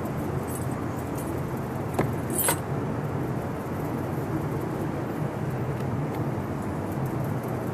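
A congregation on a carpeted floor getting up and shuffling into rows, with rustling clothing and movement over a steady low hum. A sharp click comes about two seconds in, followed by a brief jangling rustle.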